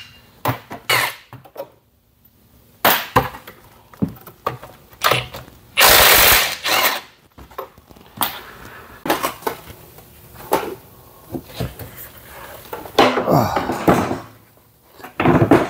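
Irregular metal clanks and knocks of hand tools and engine parts as a Kohler Courage engine is unbolted and lifted out of a garden tractor chassis. The loudest sound is a short burst of a power tool about six seconds in.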